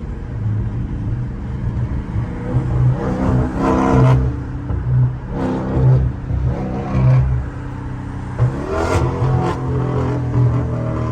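Exhaust of a catless Dodge Scat Pack's 392 HEMI V8 while driving: a steady low drone that swells in bursts as the throttle is pressed, with a couple of sharp pops about nine seconds in.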